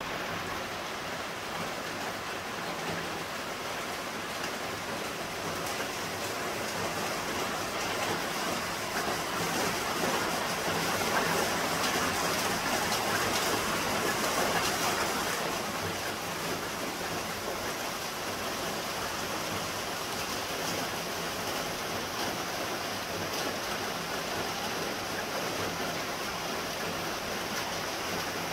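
Steady rain falling on leaves and paving, growing louder for a few seconds around the middle.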